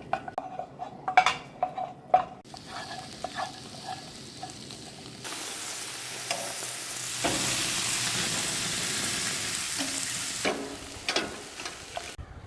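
Stir fry sizzling in a pan, with a utensil knocking and scraping against the pan as it is stirred. The sizzle comes in about halfway through, gets louder, then eases off near the end among a few more utensil knocks.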